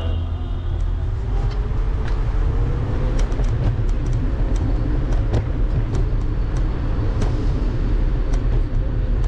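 Electric scooter riding along a sidewalk, heard from its handlebar-mounted camera: a steady deep rumble of road vibration and wind on the microphone. Over it a motor whine rises over the first few seconds as the scooter gathers speed and then holds steady, with scattered sharp clicks.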